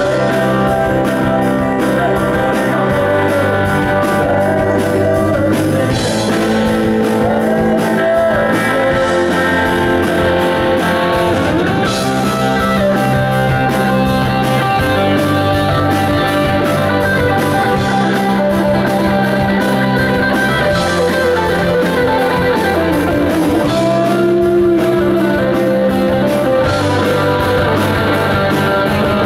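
Live rock band playing an instrumental passage, with an electric guitar taking the lead in bending melodic lines over steady bass notes.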